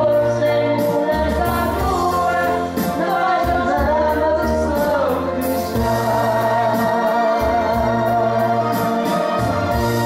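A man and a woman singing into microphones over a karaoke backing track with bass and drums. From about halfway through, a long wavering note is held.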